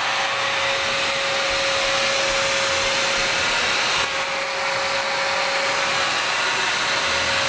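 Upright vacuum cleaner running steadily, a constant hiss with a steady whine through it, its sound dipping briefly about four seconds in as it is pushed across the floor.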